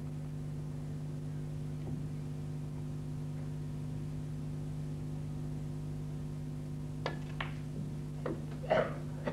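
A steady low electrical hum, with a few sharp clicks of snooker balls near the end: the cue striking the cue ball, the cue ball hitting the black, then a knock as the black drops into a pocket.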